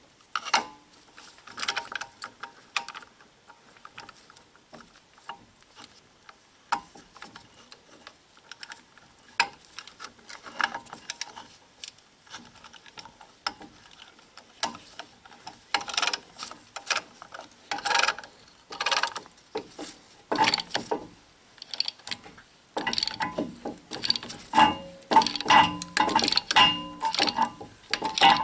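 Metal clicks, clinks and knocks of hand tools and brake parts being handled while the front brake caliper piston is pushed back and the pads are serviced. The clinks come faster and ring briefly near the end.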